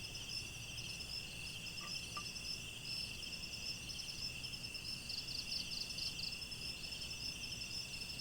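Chorus of insects, crickets or similar, trilling steadily in two high pitches, the higher one in rapid pulses, over faint background noise.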